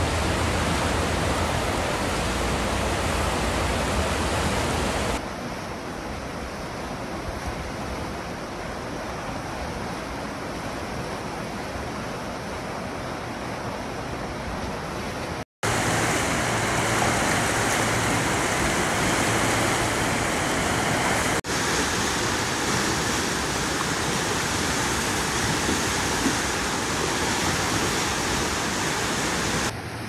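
A fast, high snowmelt river rushing steadily over rapids, a dense continuous roar of whitewater. A low rumble sits under it for the first five seconds, and the sound cuts off for a moment about halfway.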